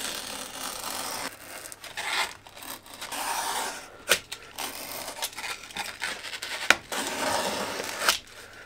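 Utility knife drawn along the edge of a plywood strip, slicing off the overhanging self-adhesive hook tape in a series of rasping strokes, with a few sharp clicks in between.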